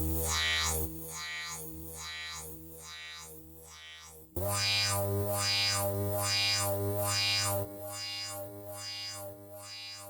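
140 bpm dubstep synth loop in F major: a synth chord swept up and down by a filter about once per beat over a deep sub-bass. The loud bass and sweep drop back about a second in, and the phrase comes back in loud about four seconds in before falling off again near the end.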